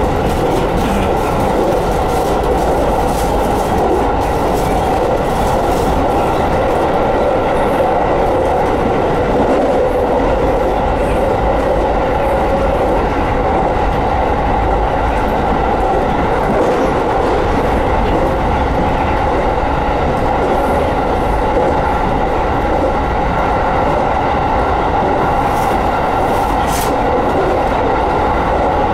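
Electric commuter train running along the track: a steady rumble of wheels on rail under a steady whine, with a couple of sharp clicks near the end.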